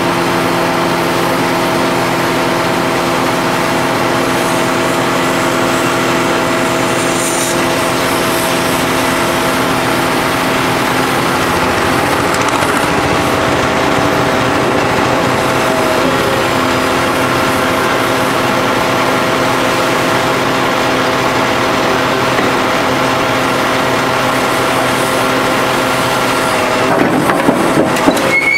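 Hydraulic power pack driving an H-beam pile extractor, running steadily with a whine of several held tones. The pitch dips slightly about halfway, and a few knocks come near the end.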